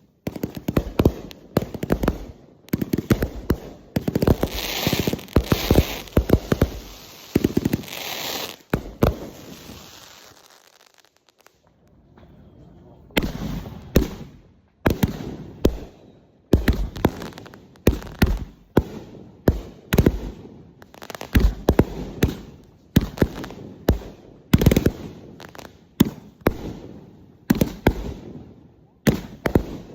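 Fireworks going off in rapid, repeated bangs, dense for the first nine seconds or so, then a pause of about three seconds, then steady bangs again about once or twice a second.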